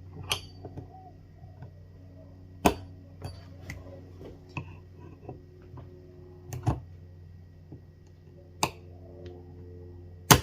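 Scattered sharp metallic clicks and clinks of hand tools and parts on a chainsaw's clutch assembly as its circlip is worked off, the loudest click just before the end, over a steady low hum.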